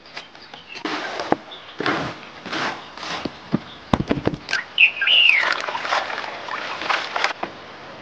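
Fresh green leaves rustling as they are handled and tipped from a bamboo basket into a wooden bucket, with a few sharp knocks about four seconds in. A bird gives one short chirp that rises and falls about five seconds in.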